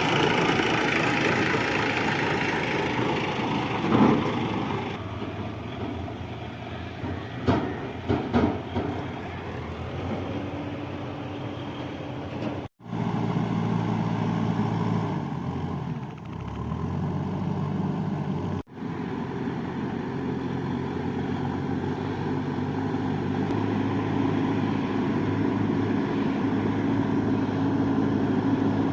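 JCB 3DX backhoe loader's diesel engine running steadily under working load, with a few sharp clunks about four and eight seconds in. Near the middle the engine pitch dips and recovers, and the sound cuts out briefly twice.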